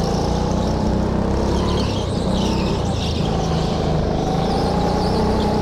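Go-kart motor running steadily at a slow pace under yellow flags, heard from on board the kart. Its tone rises slightly now and then.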